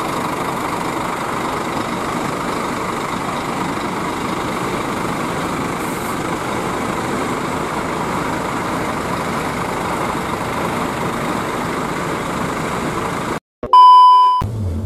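Scania K360iB bus's rear-mounted five-cylinder diesel engine idling steadily, heard at the rear engine grille, a sound that is gahar (fierce). Near the end it cuts off and a short, loud test-pattern beep sounds.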